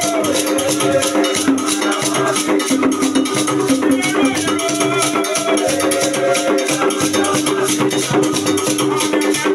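Several men singing together in unison over a fast, even clatter of wooden sticks struck in rhythm.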